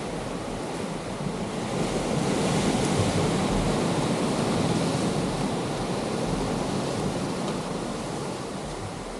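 Ocean surf breaking on rocks, a steady wash that swells a couple of seconds in and slowly eases off.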